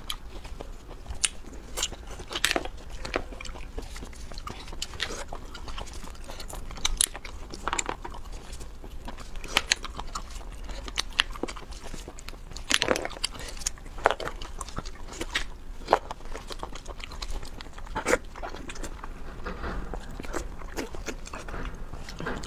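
Close-miked eating: crawfish shells cracking and being peeled, with biting and chewing. It comes as irregular sharp crunches and clicks every second or so.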